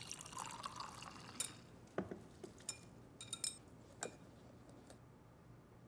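Water pouring softly into a glass bowl of gram flour, then a whisk beating the gram-flour batter and clinking sharply against the glass bowl several times at irregular intervals.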